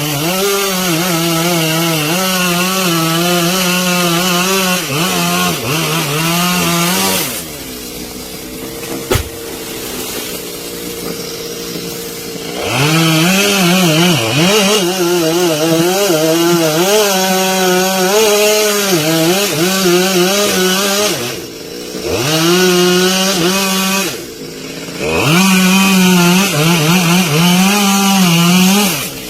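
Two-stroke chainsaw cutting into wood, its engine pitch wavering under load. It drops to idle for about five seconds after the first cut, then bites in again with two brief let-offs near the end.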